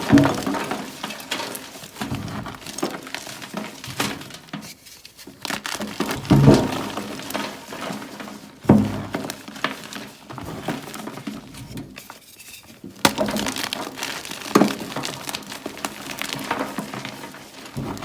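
Close-miked biting and chewing of Ader gym chalk blocks: a sharp crunchy bite every few seconds, with steady crunching and crumbling between bites.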